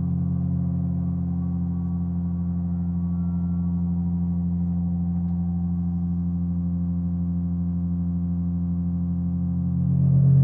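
Sustained electronic drone: a stack of steady low tones held without a break, with a louder low tone swelling in near the end.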